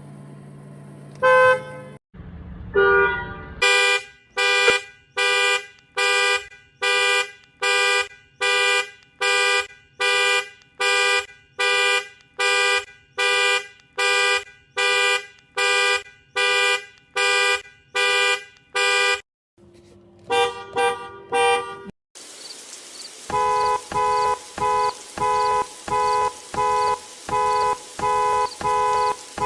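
Car horns in a string of clips. First a couple of short honks, then a car alarm sounding the horn in regular pulses, about one and a half a second, for some fifteen seconds. After a break, another two-note horn pulses the same way a little faster, over a steady hiss.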